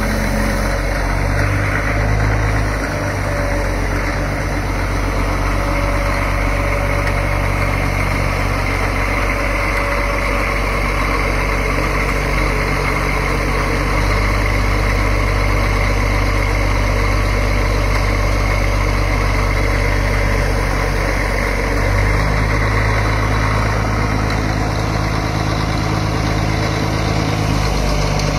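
Caterpillar 14G motor grader's six-cylinder diesel engine idling steadily.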